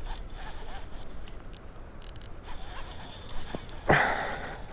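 Baitcasting reel being cranked to retrieve a small swimbait, with wind rumbling on the microphone. A short breathy burst about four seconds in.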